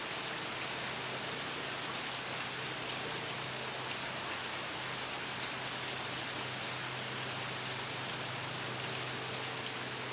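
Steady hiss of falling water from the Schleier waterfall, with a faint low hum underneath.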